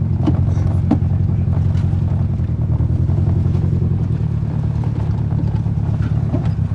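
Car driving slowly on a rough off-road trail: a steady, pulsing low engine and drivetrain rumble, with a few sharp knocks about a second in and again near the end.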